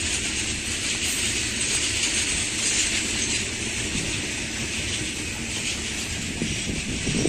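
Freight train of covered goods wagons rolling past, with a steady rumble and rattle of wheels on the rails.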